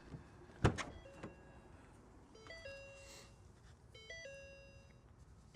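A single click, then a faint electronic chime melody of a few stepped notes that repeats about every one and a half seconds.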